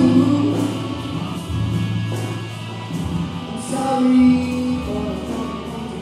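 A small band playing a song: a man singing lead with other voices joining in, over electric guitars and long, held low notes.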